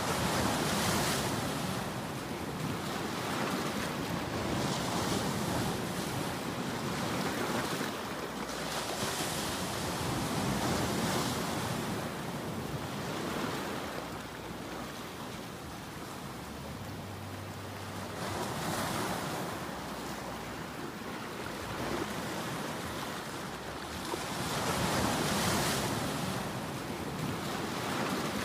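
Ocean surf: waves breaking and washing in, the sound swelling and fading every few seconds.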